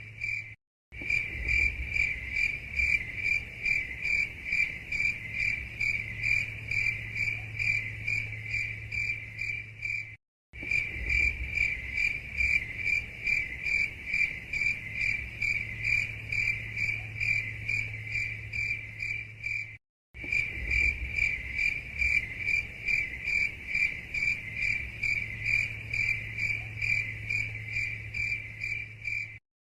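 Cricket chirping: a fast, steady pulse of high-pitched notes, about five a second, over a faint low hum. The sound drops out to silence for a split second about every ten seconds.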